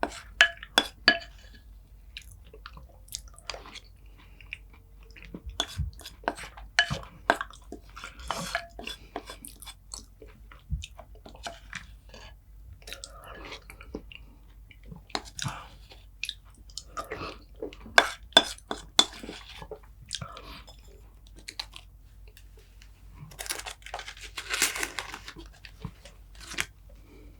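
Close-miked eating sounds: a person biting and chewing crunchy food, sharp crunches coming in clusters with quieter wet chewing between them.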